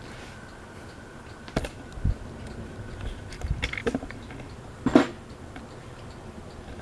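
Fanimation Windpointe ceiling fan running on high: a steady hum with a faint constant whine, broken by a few scattered knocks and clicks, the loudest about five seconds in.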